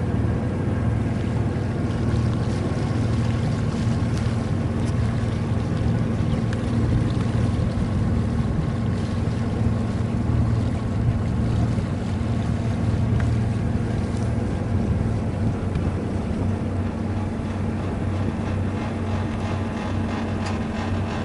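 Sailboat's auxiliary engine running at a steady speed, a constant low drone.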